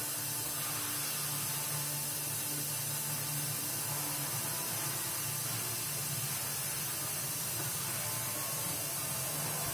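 Kitchen sink tap running steadily, filling a large jug with water.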